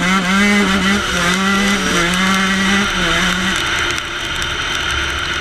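Dirt bike engine under hard throttle, its note held high with two brief dips, then dropping away about three and a half seconds in as the throttle is eased off, with wind rushing past the helmet microphone.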